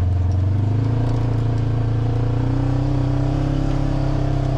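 Polaris RZR side-by-side's engine running steadily while under way, its pitch stepping up a little about a second in.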